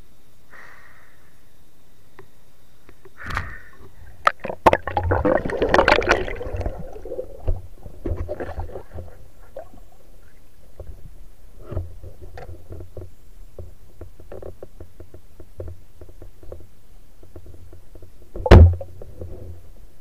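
Muffled underwater sound of a diver moving among river rocks: scattered clicks and knocks, a rush of water noise about five seconds in, and one loud thump near the end.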